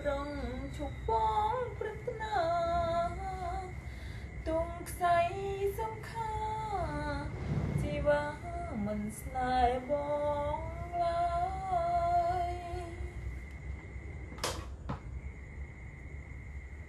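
A woman singing unaccompanied, one voice with long held, sliding notes, which stops about thirteen seconds in. A single sharp knock follows, with a faint steady high tone underneath throughout.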